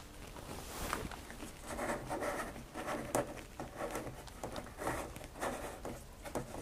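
Irregular soft scrapes and small clicks of a plastic action figure on its clear stand being turned by hand on a diorama floor, with fingers rubbing on the base.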